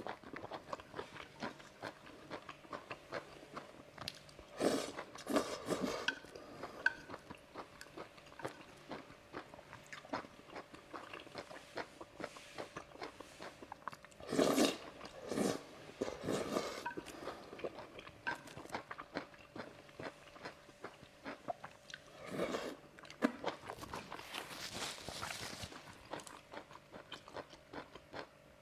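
Close-miked biting and chewing of seafood, with crunches, coming in irregular clusters of bites separated by quieter chewing.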